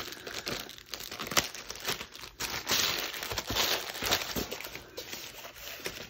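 Thin clear plastic bag crinkling and rustling as a rolled canvas is pulled out of it and handled, with a louder spell of crackling a little before the middle.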